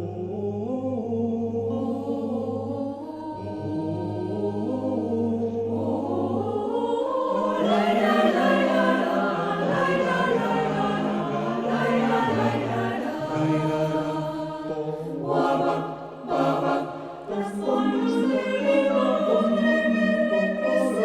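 Choir singing in harmony, holding sustained chords over low held notes, swelling into a fuller, louder sound about seven seconds in.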